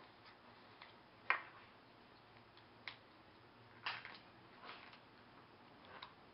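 A few light clicks and taps, the loudest about a second in and a small cluster near four seconds: plastic spice-jar caps being handled and set down on a glass tabletop.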